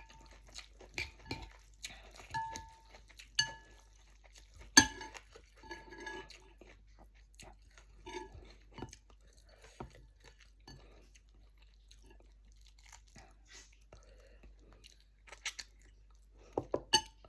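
Close-miked eating of chicken-feet rice-vermicelli noodles: a utensil clinks against the bowl several times in the first five seconds, each clink leaving a short ringing note, then chewing and crunching with scattered soft clicks, and a quick run of louder clicks near the end.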